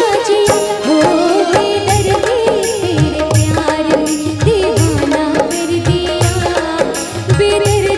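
Live stage-band music for a Hindi film song: a wavering, ornamented melody line over a steady drum beat of about two hits a second.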